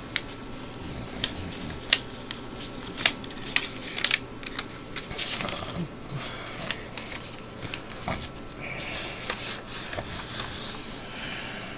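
A sheet of paper being handled, folded and creased by hand: soft rustling broken by sharp, irregular crinkles and snaps as the creases are pressed in.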